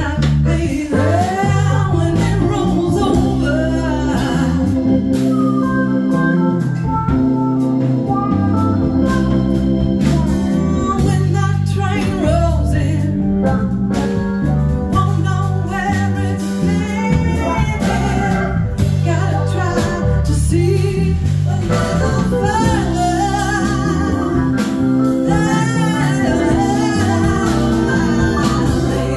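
Live band playing a song: a woman singing lead over guitars, drums and keyboards.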